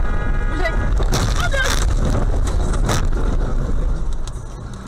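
Car collision heard from inside the dashcam car. Over loud, steady road and engine rumble, a harsh burst of crash noise comes about a second in and a sharp impact bang about three seconds in, then the noise dies down.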